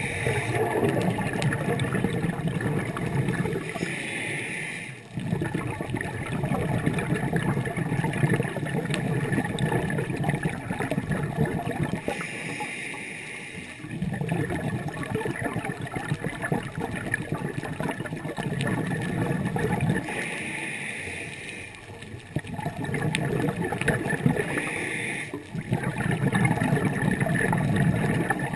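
Scuba diver breathing through a regulator underwater: a short hissing inhale, then a long rush of exhaled bubbles lasting several seconds, repeating about four times.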